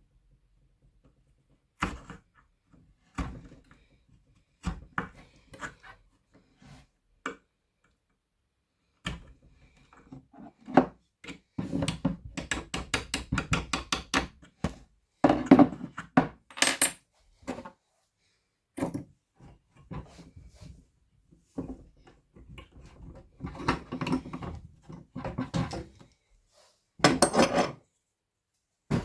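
Hand tools working on wood and metal: scattered knocks and clatter, with two stretches of quick repeated strokes, one in the middle and one near the end.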